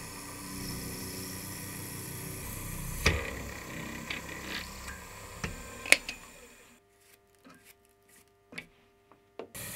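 A few sharp clicks and knocks of small metal parts being handled, over a steady low background hum, the loudest knock about six seconds in. The sound then drops to near silence, with only a few faint ticks, for the last few seconds.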